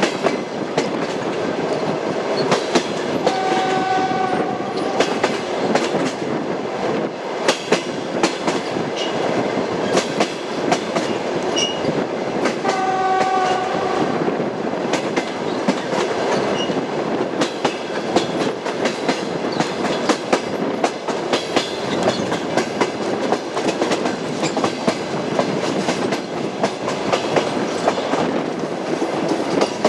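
Passenger train running, its wheels clattering steadily over the rail joints. A pitched horn sounds twice, briefly, about four seconds apart from the start and again about thirteen seconds in.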